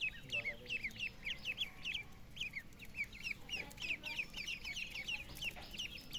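A group of young poultry chicks peeping: many short, high cheeps that fall in pitch, several a second and overlapping.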